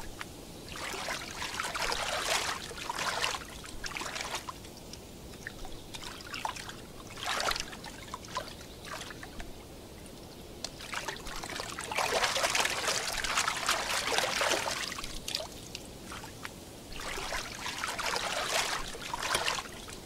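Water trickling and splashing in irregular bursts that swell and fade, the longest and loudest lasting a few seconds just past the middle.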